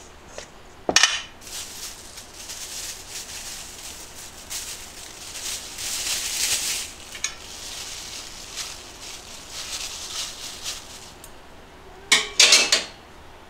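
Metal chopsticks knock against a stainless steel mixing bowl about a second in. A thin plastic bag then crinkles and rustles for several seconds as it is pulled over a hand. Near the end come a few loud knocks against the metal bowl.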